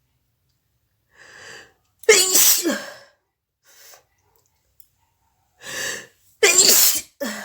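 A woman sneezing twice, each loud sneeze preceded by a short in-breath; the second sneeze is followed right away by a shorter third one near the end.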